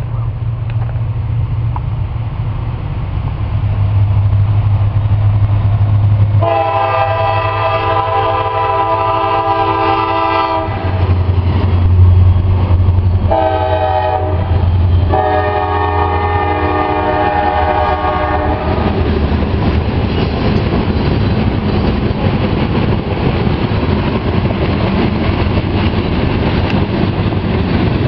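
Diesel locomotives of a CSX ballast train passing close by with a heavy low rumble. The locomotive horn sounds a long blast about six seconds in, a short one, then another long one. Then the loaded ballast hopper cars roll past with steady wheel-on-rail noise and clickety-clack.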